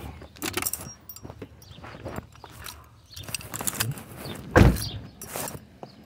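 Rubbing, clicks and knocks of a handheld phone being jostled while its holder slides down, with one loud deep bump about four and a half seconds in.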